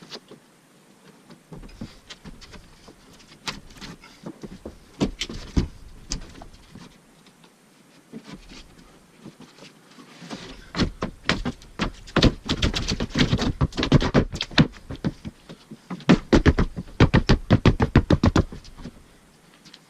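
Clicking and knocking of a caulking gun laying beads of Liquid Nails construction adhesive on a subfloor. The knocks are scattered at first, then from about halfway become a fast, dense run of sharp clicks, several a second.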